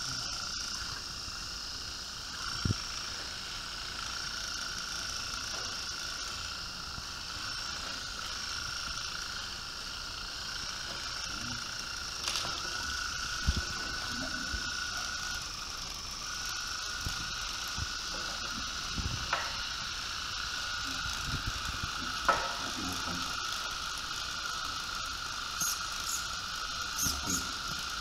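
Hobby servo motors in a 3D-printed backhoe-style robot arm whining steadily at a high pitch as the arm is driven and held in position. A few small clicks and knocks, more of them near the end.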